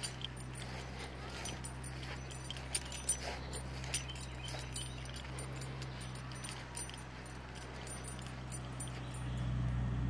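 Pigs snoring in their sleep: a low, steady drone with scattered faint clicks, growing a little louder near the end.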